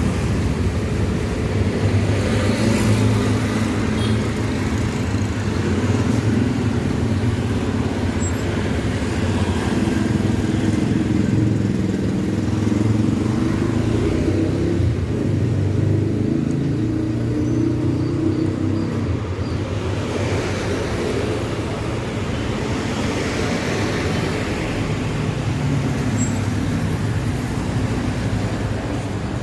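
Street traffic: the engines of nearby vehicles run with a steady low hum for most of the first twenty seconds, then give way to a broader rush of passing traffic.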